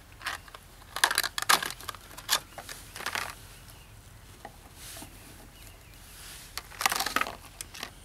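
Stiff clear plastic blister packaging crackling and crinkling in short bursts as a crimping tool is pulled out of it by hand, with a last burst near the end.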